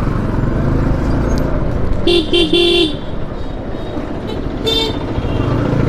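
Vehicle horn honking three quick times about two seconds in, then one short toot of a different pitch near the end, over the steady running noise of a motorcycle on the move in traffic.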